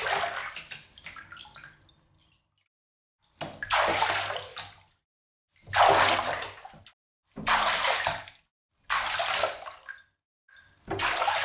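Water splashing in six separate splashes, each lasting about a second and dying away, with silence between them.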